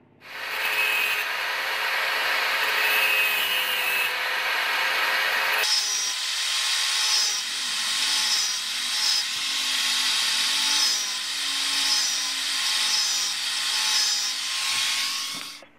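Angle grinder cutting notches into the steel spine of a knife blade, its pitch dipping again and again as the disc bites into the metal. It starts suddenly at the start and cuts off suddenly near the end.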